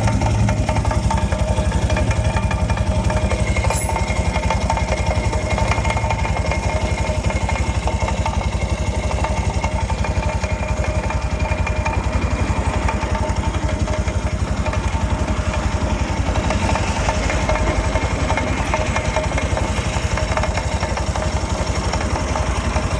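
Italika V200 motorcycle running steadily on its stand in gear, its single-cylinder engine turning the rear wheel while the drive chain makes an odd noise at the front sprocket. The owner suspects a worn-out chain, possibly a worn front sprocket as well.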